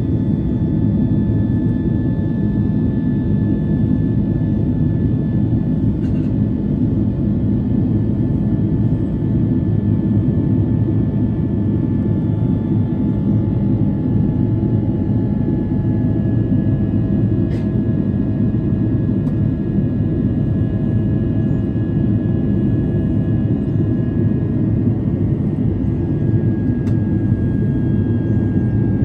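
Steady cabin roar of a jet airliner climbing after take-off, heard inside the cabin: a loud, even engine and airflow drone heavy in the low end, with a few faint whining tones that drift slowly lower.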